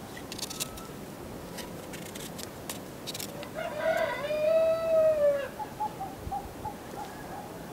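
A rooster crowing once, about four seconds in: a few short notes rising into one long held final note. Before it comes a light crackling of dry onion skin being peeled by hand, and a few soft hen clucks follow the crow.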